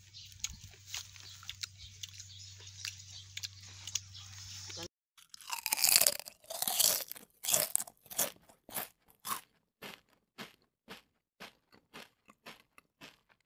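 A faint steady low hum, then a loud crunching bite into a firm unripe green mango, followed by crisp chewing crunches about twice a second that gradually fade.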